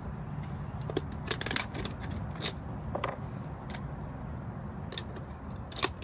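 Toy Nerf blasters being handled and loaded, a series of short sharp plastic clicks and rattles, the loudest about a second and a half in and again about two and a half seconds in.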